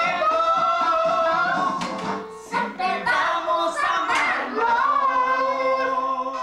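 A small boy singing a slow, sentimental song into a microphone, holding long notes with vibrato and sliding between pitches, with a short break about two and a half seconds in.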